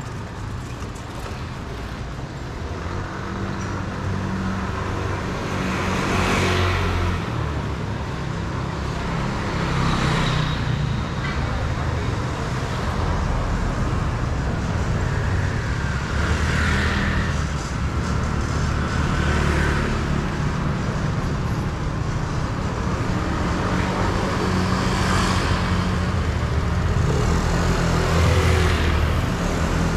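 Street traffic: a steady low engine rumble, with vehicles passing close by about six times, each pass a swell of engine and tyre noise that rises and fades over a second or two.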